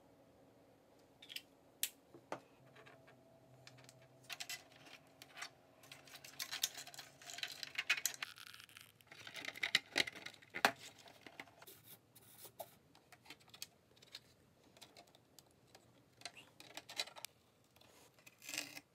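Faint, scattered small clicks, taps and scraping of hands handling 3D-printed PLA plastic plane parts, pressing a servo into a pocket in the wing.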